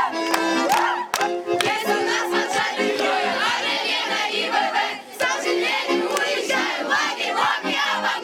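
Music playing with a crowd of young voices shouting and cheering over it.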